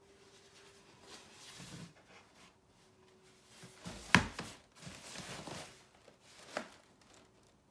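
A cardboard shoebox being handled and turned over in the hands, with cardboard rubbing and rustling, a single sharp knock a little after four seconds in and a smaller knock about two seconds later.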